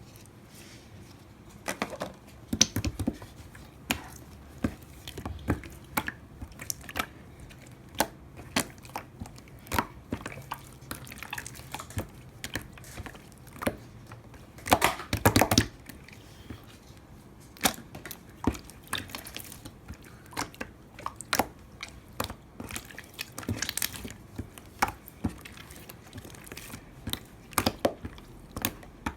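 Slime being squeezed and stretched by hand, making irregular wet squishes, clicks and small pops, with a denser, louder run of crackling about fifteen seconds in.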